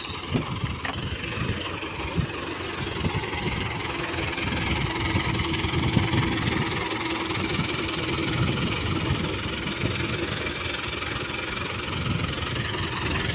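A farm tractor's diesel engine running steadily under load as it pulls a cultivator through field soil.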